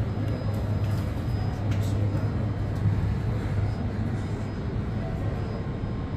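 Strong hot wind blowing across the microphone, a steady rushing rumble with a low hum underneath that eases a little about halfway through.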